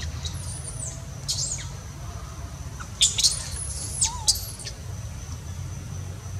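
A young macaque screaming: shrill, high-pitched squealing cries, one near the start, another just after a second in, and a close run of them from about three seconds in.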